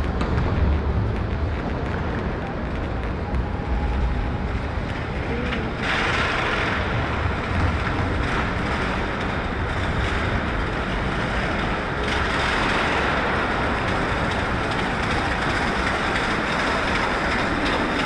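Ambient noise of a large railway station concourse: a steady, echoing hiss of background activity over a low rumble. It brightens abruptly about six seconds in and again about twelve seconds in.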